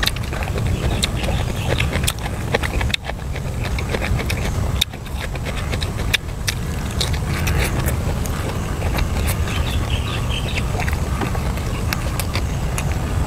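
Close-up eating sounds: chewing with scattered sharp crunches, clicks and smacks. A steady low rumble runs underneath.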